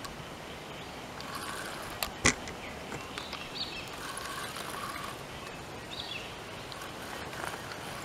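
Steady outdoor background noise with two sharp knocks close together about two seconds in, the second the louder.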